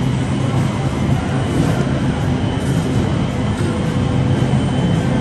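Steady low hum and hiss of supermarket background noise, with faint steady whines over it and no distinct events.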